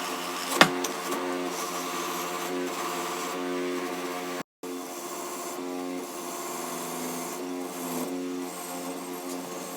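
Steady background music with a plucked-string sound, broken by a brief cut about four and a half seconds in. A single sharp knock about half a second in.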